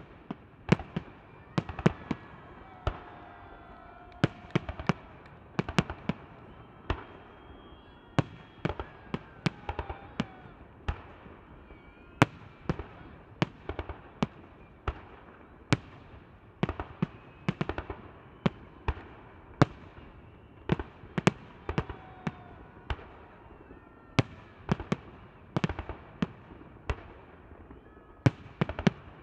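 Fireworks salute: shells bursting overhead in a rapid, irregular series of sharp bangs, sometimes several a second, without a break.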